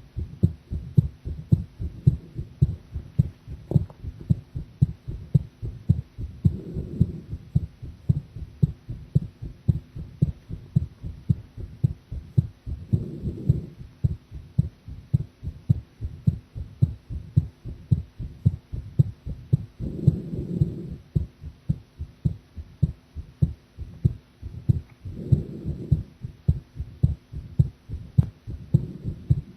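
A woman's heartbeat recorded from her chest: a steady, regular train of deep lub-dub thumps. Four times, a softer rushing sound lasting about a second rises beneath the beats.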